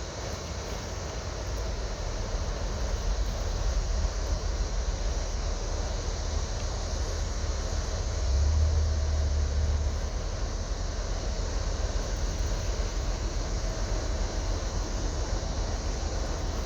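Low, steady rumble of a boat's engines as it moves into a lock, swelling louder about eight seconds in.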